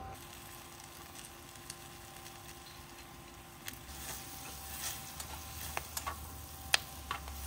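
Vegetables sizzling in a wok over a wood-burning camp stove. From about halfway in, a utensil scrapes and clacks against the metal pan as they are stirred.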